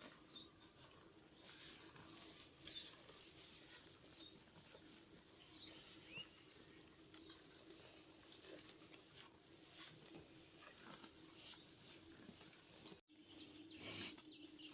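Faint, irregular tearing and chewing of cattle grazing on grass, with a few short bird chirps and a faint steady hum underneath.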